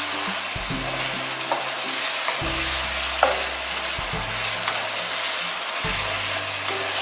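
Chicken in onion-tomato masala sizzling in hot oil in a nonstick wok while being stirred, with a spoon scraping and clicking against the pan now and then, sharpest about three seconds in. This is the bhuna stage, the masala fried until the oil has separated. Soft background music plays underneath.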